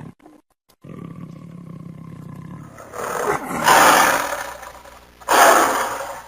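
Big cat roaring: after a brief silence, a low growl runs for about two seconds and swells into a loud roar about three and a half seconds in, followed by a second loud roar just past five seconds that fades away.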